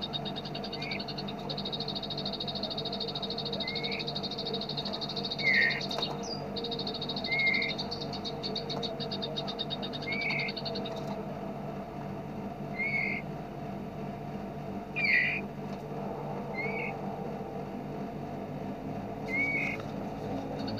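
Recorded songbird calls: a rapid, unbroken high trill that drops out about halfway, with short sharp chirps about every one to three seconds, nine in all, over a low steady drone.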